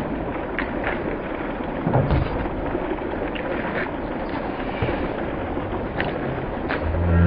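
Wind buffeting the microphone: a steady rushing noise with a rumble, broken by a few light clicks and a thump about two seconds in.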